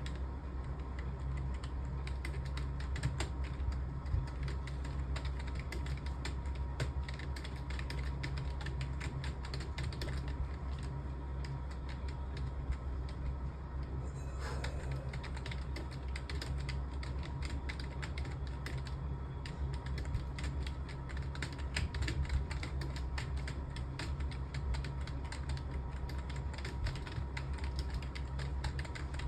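Computer keyboard being typed on fast and without pause, a dense stream of key clicks, over a steady low hum.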